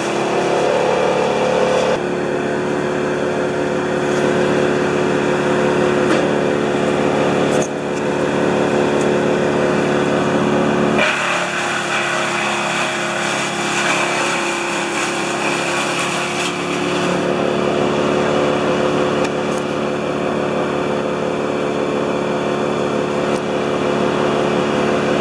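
Wood chipper's engine running steadily at a constant pitch, loud, with slight changes in its note about two seconds in and again about eleven seconds in.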